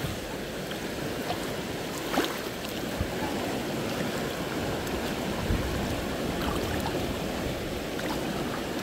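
Steady rushing outdoor noise with a few light knocks and one dull thump about five and a half seconds in.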